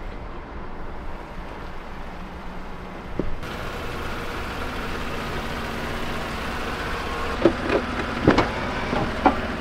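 Steady low hum of a vehicle running, growing a little louder, with a few sharp clicks and knocks in the last two seconds.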